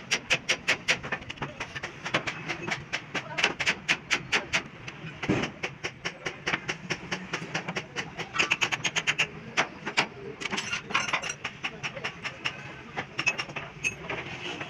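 Hand hammer striking the steel of a truck's leaf-spring suspension: quick runs of sharp metallic blows, several a second, with short pauses between the runs.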